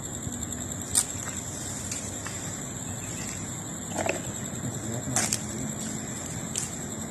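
Night insects trilling steadily at a high pitch, with a few sharp clicks about one, five and six and a half seconds in and a duller crunch about four seconds in.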